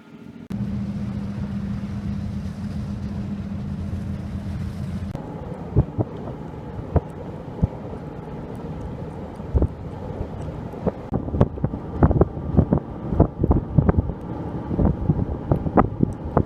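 An engine running steadily, cut off sharply about five seconds in. Wind noise on the microphone follows, with many short knocks that come more often near the end.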